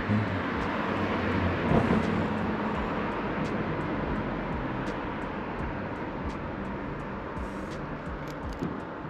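Engine noise of a passing motor: a steady rush with a low hum that swells right at the start, is loudest about two seconds in, then slowly fades.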